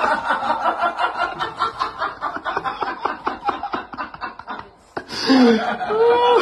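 A person laughing in a long run of quick snickering bursts that stops about four and a half seconds in. A voice with a rising and falling pitch follows near the end.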